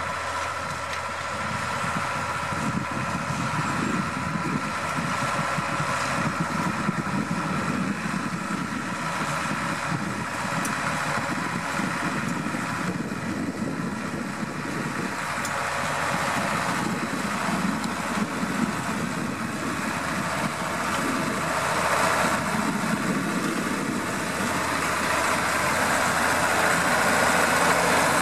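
New Holland TS115 tractor's diesel engine running steadily as the tractor pulls a working power harrow through the soil. It grows louder near the end as the tractor comes close.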